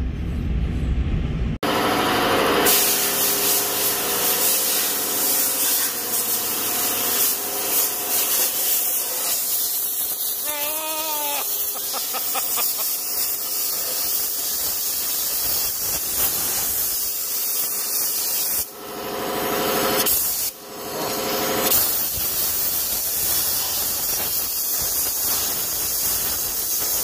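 Briefly a moving vehicle's road noise, then a loud, steady hiss and rub of cleaning work inside the cylinder-sleeve bores of a John Deere 5020 engine block. The hiss breaks off briefly twice near two-thirds of the way through.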